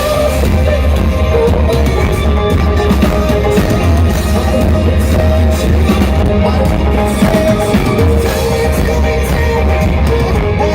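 Live rock band playing a song through a PA system: guitars and drums over a heavy bass line that comes in right at the start.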